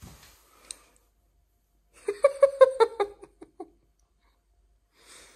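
Giggling laughter: a quick run of high 'ha-ha' bursts about two seconds in, roughly seven a second, trailing off after a second and a half.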